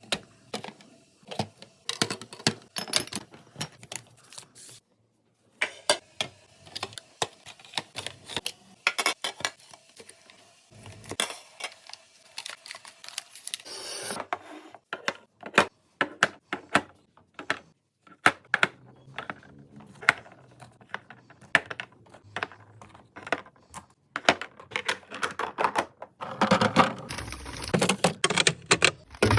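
Containers and packaging being handled and set down while a fridge is restocked: many sharp clicks, taps and knocks in irregular runs, with a brief pause about five seconds in and a busier stretch near the end.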